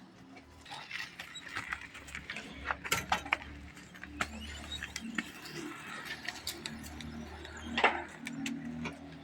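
Manual construction work: scattered knocks, clinks and scrapes of tools and buckets, irregular throughout, with a sharper knock near the end and a low steady hum underneath.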